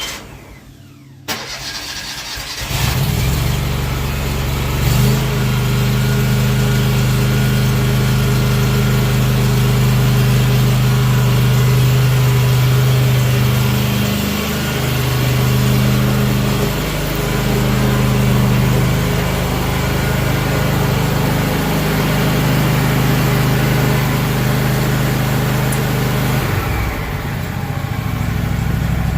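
Walker C19 mower's 29-horsepower Kohler engine cranking and catching a couple of seconds in, then running steadily. Its pitch dips and recovers a few times midway.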